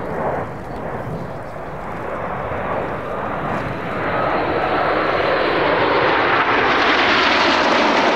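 Five BAE Hawk T1 jets' Adour turbofans, a rushing jet noise that grows steadily louder and brighter as the formation approaches, loudest over the last few seconds.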